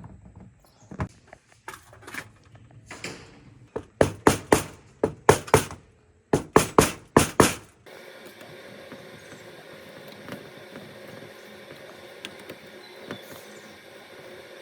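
Sharp knocks on a metal part, about a dozen in quick succession, each with a short ring. They are followed about halfway through by a sudden change to a steady mechanical hum.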